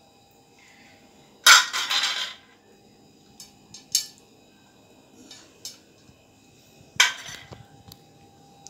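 Steel spoon scraping and clinking against a steel idli-stand plate and a serving plate as freshly steamed idlis are lifted out. There is a loud scrape about a second and a half in, then a few short sharp clinks, the loudest about seven seconds in.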